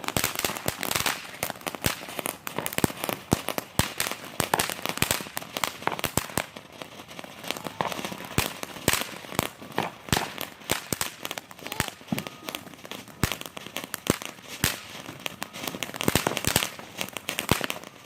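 Fireworks going off: a dense, irregular run of sharp cracks and pops, several a second.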